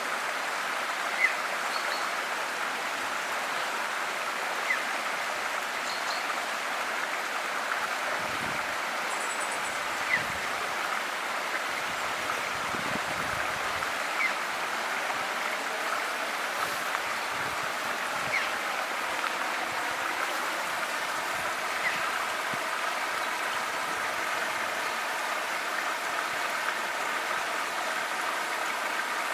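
River water flowing steadily. A short, sharp chirp sounds about every three to four seconds, with a few faint higher bird notes in between.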